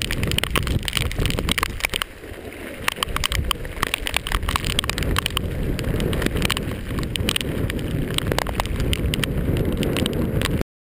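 Wind and heavy rain on a handheld GoPro: a steady rumble of wind buffeting the microphone with many sharp taps of raindrops striking the camera. The sound cuts off suddenly near the end.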